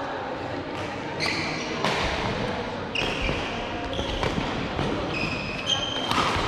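Racket-sport rally in a sports hall: sharp racket hits about once a second, with short high squeaks of sports shoes on the court floor between them.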